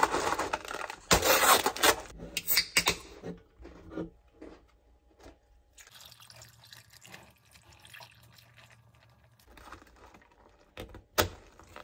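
Water sounds, loud for the first three seconds, then faint with scattered small ticks, and a sharp click near the end.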